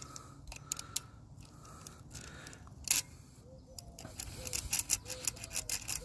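A Leatherman Wave multitool's file scraping and clicking between the contacts of a Square D well-pump pressure switch, cleaning the contacts so that the switch will close and start the pump. Irregular scrapes and clicks, with one sharp click about three seconds in and a quick run of them near the end.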